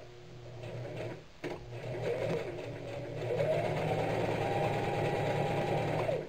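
Singer electric sewing machine stitching a seam. Its motor whine rises as it speeds up, holds steady, then falls as it slows and stops near the end, with a short break about a second and a half in.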